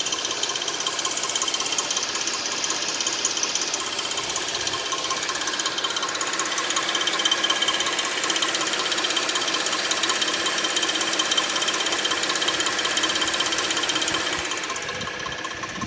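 2006 Suzuki 2.7-litre V6 engine running with a fast, continuous metallic ticking clatter: the unexplained weird noise the owner is asking about. It gets a little quieter near the end.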